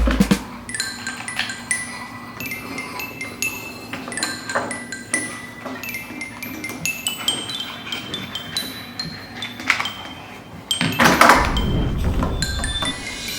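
A string of light clinks and short ringing pings, irregularly spaced, growing louder and denser about eleven seconds in.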